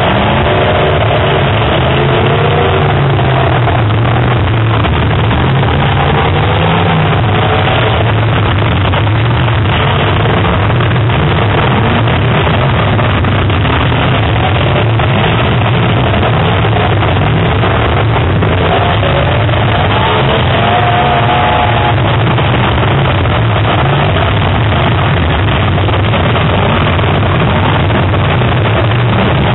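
Several full-size demolition derby cars' engines running and revving at once: a loud, unbroken din whose pitch rises and falls at times.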